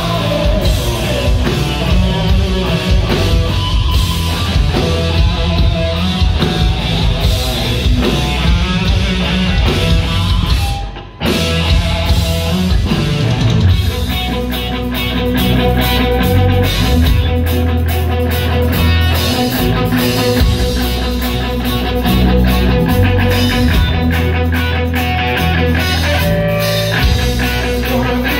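Live rock band playing loud: electric guitars and a drum kit, with a brief break about eleven seconds in before the whole band comes back in.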